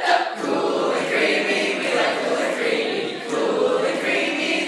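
A group of teenagers' voices singing together, one steady unbroken stretch with no pauses.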